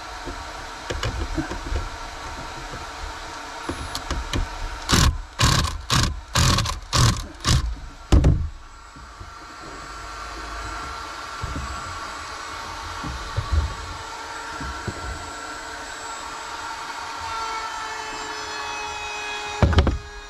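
Power drill with a Phillips bit driving a screw into a light strip's support strip. A run of about six sharp knocks, then a long steady motor whine whose pitch rises near the end, and one loud knock just before the end.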